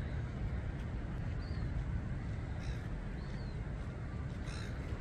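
Silver gulls giving a few short, harsh squawks over a steady low rumble.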